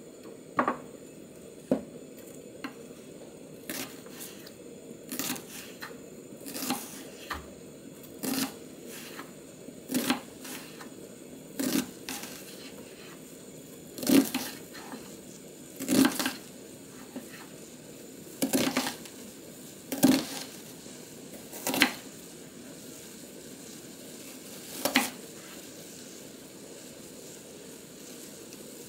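Chef's knife slicing a white onion into thin strips on a wooden cutting board: each cut is a crisp crunch through the onion ending in a knock on the board. The cuts come one every one to two seconds and stop a few seconds before the end.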